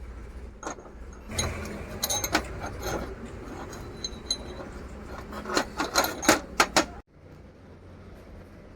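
Irregular metallic clicks and clinks of parts and tools being handled during a repair, with a quick run of sharp knocks near the end. Partway through the sound cuts off abruptly to a quieter low hum.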